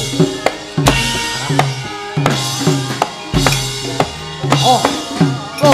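Gamelan accompaniment for a wayang kulit battle: fast, loud kendang drum strokes whose pitch bends, with sharp clacks and a bright metallic clatter over them, and a deep booming stroke every few seconds.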